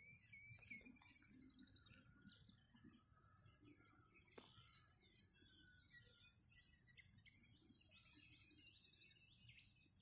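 Faint field ambience: insects trilling in a steady, high-pitched pulsing chorus, with scattered small-bird chirps throughout.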